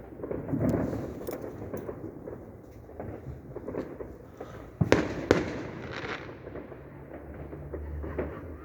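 Fireworks going off: scattered pops and crackle, with two sharp bangs about half a second apart midway, the loudest sounds, followed by a brief crackling tail.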